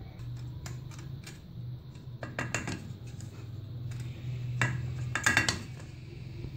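Metal cake pan clinking and scraping against a ceramic plate as it is opened and lifted off a freshly baked sponge cake. Scattered light clicks lead into a cluster of clinks around two and a half seconds in, and the loudest clatter comes around five seconds in.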